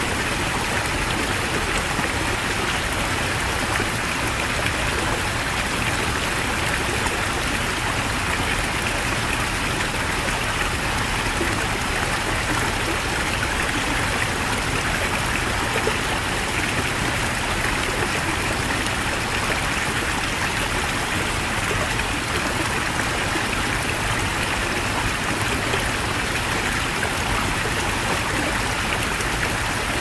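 Heavy mountain stream: a steady, even rush of flowing water that does not change.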